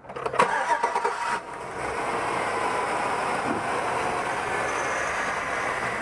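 A 2004 Chevy Tahoe's V8 engine being cranked by the starter and catching within about a second and a half, then settling into a steady idle. The engine is being diagnosed for a random multiple-cylinder misfire (code P0300).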